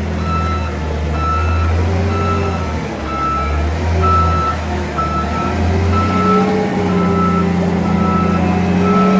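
A reversing vehicle's backup alarm beeping evenly, about once every 0.8 seconds, over the low drone of its running engine.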